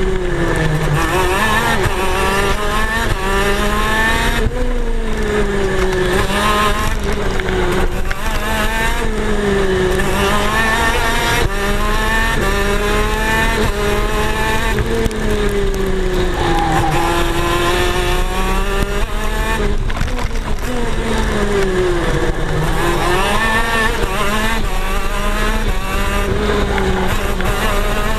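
125cc two-stroke KZ shifter kart engines racing, their pitch repeatedly falling and climbing again every few seconds.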